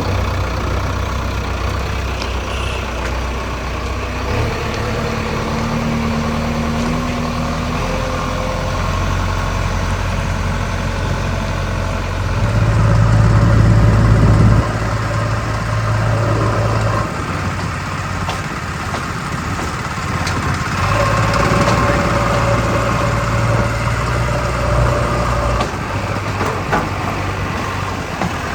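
Heavy diesel engine running steadily. It revs up twice under load, with a thin whine over the engine during the second rise.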